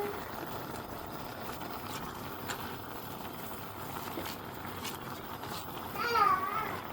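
Steady background hiss from the kitchen with a few faint taps, then about six seconds in a baby's short high squeal that rises and falls in pitch.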